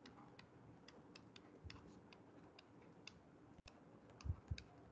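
Near silence with faint, irregular ticks from a stylus tapping on a writing tablet as words are handwritten, and two soft low thumps near the end.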